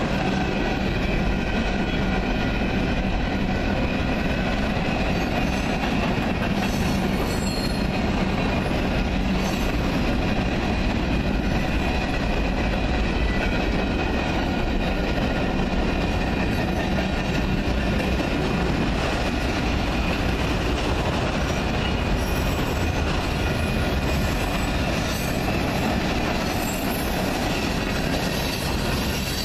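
Freight train rolling past close by, a steady loud rumble of boxcars and hopper cars on the rails, with a thin high wheel squeal running through it.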